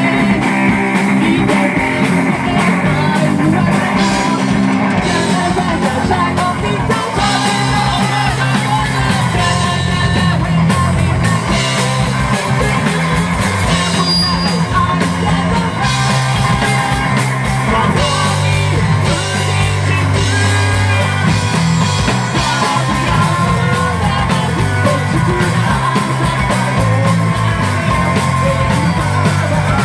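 Live rock band playing loud: electric guitar, bass guitar and drum kit, with a singer singing over them.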